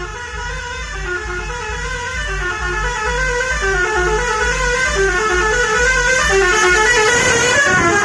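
A tourist bus's musical air horn playing a tune in stepped notes, growing louder as the bus approaches, over a low pulsing beat.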